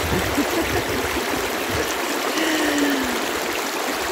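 Water flowing steadily along a small canal, an even, unbroken sound of running water.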